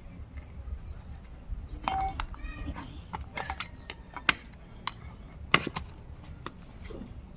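A blade chopping through a goat's head: sharp, irregular knocks, several of them, the loudest in the middle of the stretch. A brief high call is heard about two seconds in.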